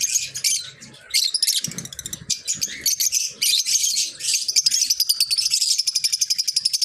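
A flock of lovebirds chattering, with rapid shrill chirps that come faster and almost without a break in the second half.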